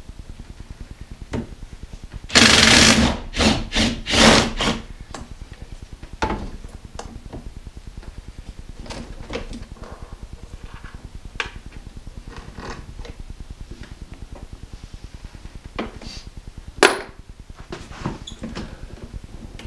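Hand tools working bolts under a car's hood. A few loud bursts of rapid metallic rattling come about two to five seconds in, then scattered clicks and clinks of a ratchet and socket extension, with one sharp click near the end.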